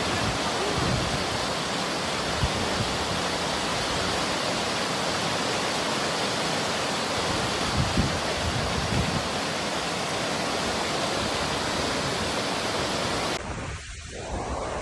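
Waterfall: the steady rush of falling water. Near the end it cuts off suddenly to a quieter, gustier sound.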